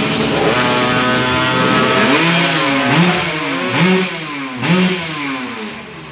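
Motocross bike engine running, then revved in four quick blips about a second apart, each rising and falling in pitch.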